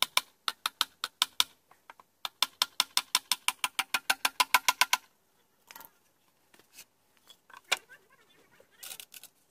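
Small hammer tapping nails into the edge of a thin plywood box: a short run of quick light strikes, then a faster run of about twenty, with the box ringing under each blow. Later come scattered quieter knocks and one sharp knock as the hammer is put down and the box handled.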